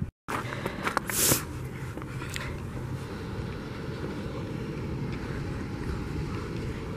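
Steady hum of rooftop HVAC units and exhaust fans running, with a short noisy rush about a second in.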